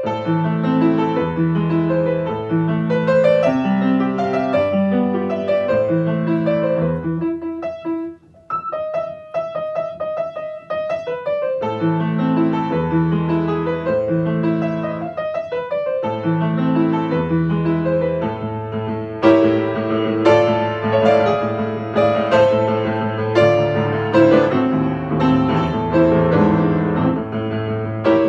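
Piano music: a flowing melody over a bass line, thinning out briefly about a third of the way in, then fuller with sharper struck notes in the last third.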